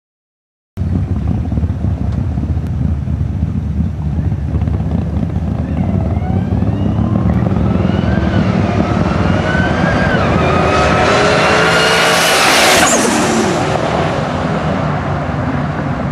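A single-turbo Toyota Supra and a Kenne Bell supercharged Mustang Cobra drag racing side by side. The sound starts abruptly under a second in with the engines running hard, then from about six seconds in they rev up through the gears, their pitch climbing and dropping back at each shift. The sound is loudest about twelve seconds in, then eases off.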